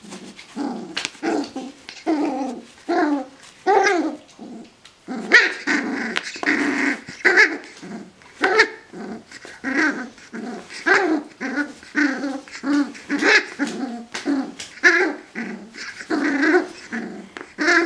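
Puppy play-growling while tugging on a rope toy: a long run of short growls, one after another.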